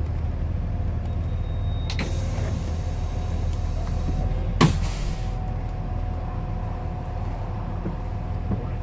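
School bus engine idling at a stop. About two seconds in there is a short hiss of air. Midway a loud clack comes with a brief burst of air hiss.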